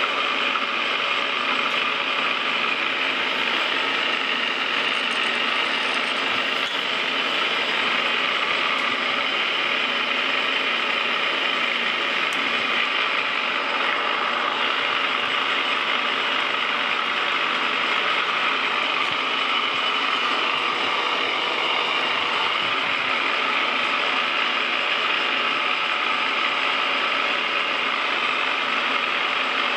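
Metal lathe running at a slow spindle speed with its gear train and power feed engaged, whirring and clattering steadily while the tool takes a threading pass along a left-hand square-thread feed screw.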